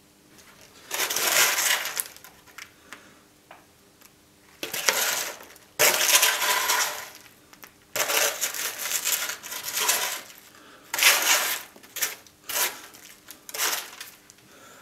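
A box of Maltesers shaken in repeated short bursts, the chocolate balls rattling in the packaging and tumbling out.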